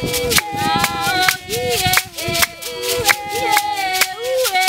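Traditional San Tsutsube dance song: high voices singing over sharp hand claps in a steady beat of about three a second, with the dancers' leg rattles shaking along.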